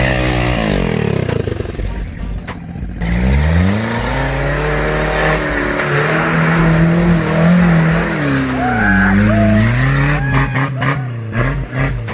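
Vehicle engine revving hard under load off-road: pitch falls at first, climbs sharply about three seconds in, is held high for several seconds, then dips and rises again. A rapid run of knocks and clatter near the end.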